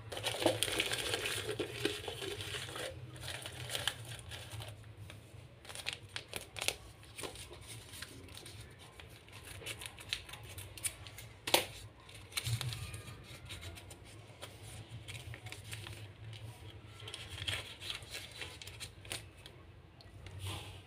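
Paper slips rustling and crinkling against a clear plastic jar as hands sort through them, loudest in the first few seconds, with scattered sharp clicks and snips of scissors cutting paper. A steady low hum runs underneath.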